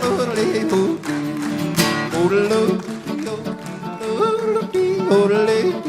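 Cowboy song played live on acoustic guitar, with a man singing and yodeling in long held notes that leap and glide in pitch.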